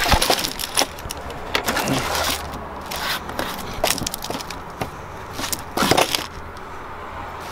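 Hands rummaging through packs of trading cards, cardboard boxes and plastic bags on a wooden shelf: rustling and scraping with a series of sharp handling noises, the loudest at the very start and about six seconds in.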